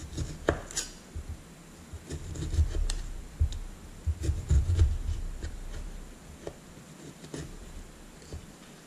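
Knife slicing limes into thin rounds on a plastic cutting board: irregular soft taps and clicks as the blade cuts through each slice and meets the board, with some low dull thumps.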